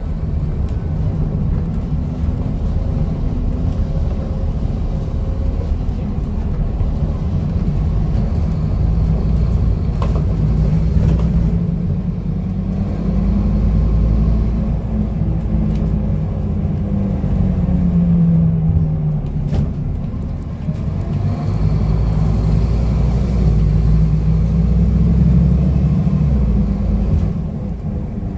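Scania N230UD double-decker bus's five-cylinder diesel heard from inside the passenger saloon while driving, the engine note rising and dropping several times as it pulls through the gears, over a steady road rumble. Two brief sharp knocks, about a third of the way in and again about two-thirds through.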